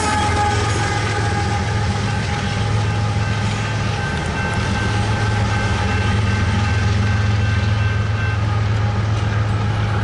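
BNSF diesel freight locomotives running with a steady low engine drone over the rumble of a passing freight train. Thin, steady high tones come in for a few seconds in the middle.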